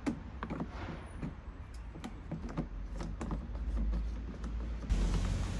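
Scattered light clicks and taps of hands and a tool working on the plastic housing of a cordless lawnmower while its screws are removed, over a steady low rumble that swells a little near the end.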